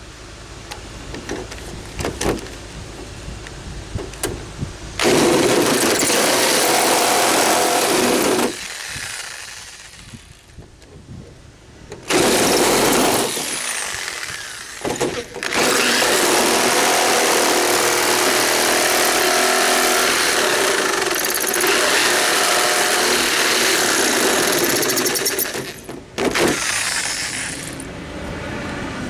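Electric jigsaw cutting into the door, started and stopped in several runs: one about five seconds in, a short one around twelve seconds, then a long steady cut of about ten seconds and a brief last one. Light clicks and handling come before the first cut.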